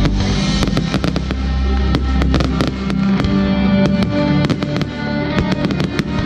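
Fireworks bursting overhead: many sharp bangs and crackles, some in quick clusters, over music with a steady low bass line.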